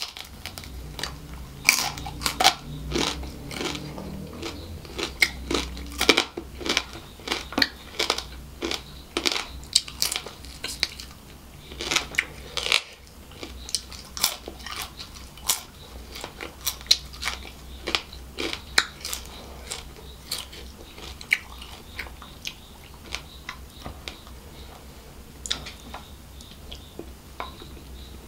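Close-miked chewing and biting of a mouthful of seafood fried rice and prawn eaten by hand, with many sharp mouth clicks and crunches that thin out toward the end.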